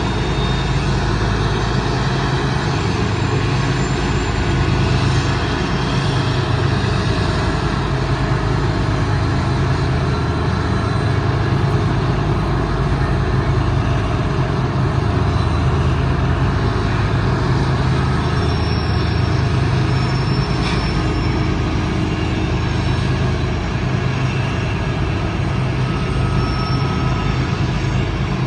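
A loud, steady low engine rumble that holds without a break, with no horn.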